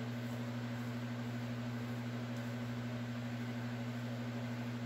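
Steady low hum with a faint hiss.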